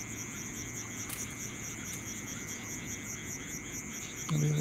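Night insects, crickets among them, chirping steadily with a fast pulsing trill high up. Near the end a frog gives a short low croak.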